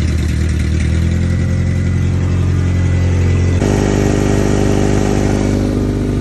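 Honda F22 four-cylinder engine of a 1994 Accord running steadily just after starting, following a repair for rod knock. The engine note changes abruptly about three and a half seconds in.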